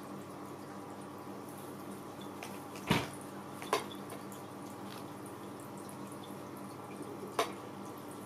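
Three short knocks, about three seconds in, a second later and near the end, the first the loudest, as a cat's paws and head bump a clear vase lying on its side while it tries to reach treats inside. A steady hum runs underneath.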